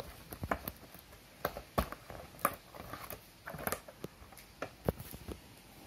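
Clear plastic and cardboard doll box being handled and opened by hand: irregular crinkles and sharp clicks from the plastic packaging.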